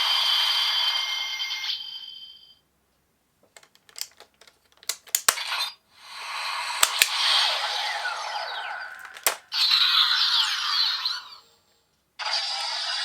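Electronic sound effects and music played by a CSM Lockseed toy through its small speaker, with no bass. They stop for a few seconds in the middle, where a run of sharp clicks is heard, then start again.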